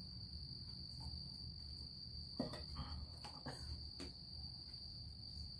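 Faint chorus of crickets, one steady high-pitched drone, over a low steady hum.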